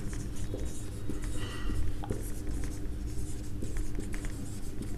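Marker pen writing on a whiteboard: a run of short strokes and scratches.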